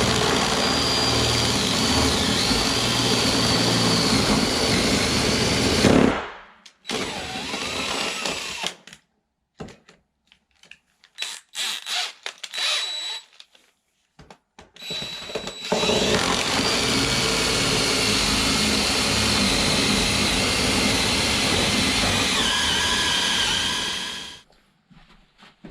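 Power drill turning a long bit on a socket extension through wooden framing: one steady run of about six seconds, a few short stop-start bursts, then a second long run of about eight seconds that cuts off near the end.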